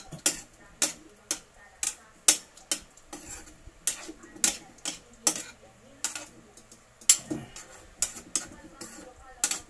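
Metal spoon clinking and scraping against a frying pan while stirring chicken adobo, about two sharp clinks a second, unevenly spaced.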